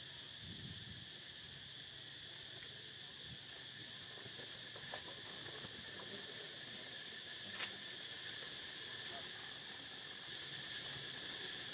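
A steady, high-pitched drone from a chorus of insects, with a few short clicks, the clearest a little past the middle.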